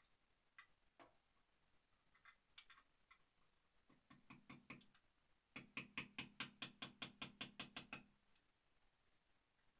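Hammer tapping on a nail held against a concrete wall: a few light, scattered taps, then a quick run of about a dozen sharp strikes, about five a second, in the second half.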